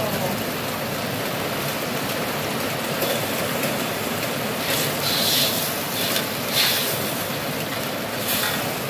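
Spice paste and sautéed aromatics sizzling steadily in hot oil in a metal wok. From about halfway in, a metal ladle stirs and scrapes against the wok in several short strokes.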